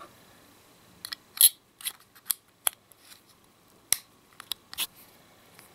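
Irregular light clicks and taps from handling a metal vape box mod while seating a silicone squonk bottle in it, about a dozen scattered sharp clicks.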